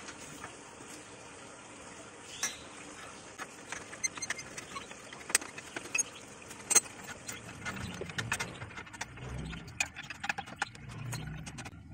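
Metal hand-tool work on a car's front strut assembly: a wrench on the strut's top nut and steel parts of the strut and spring compressor clinking and knocking, in scattered sharp clicks, several of them louder. A low hum rises and fades in the background from about eight seconds in.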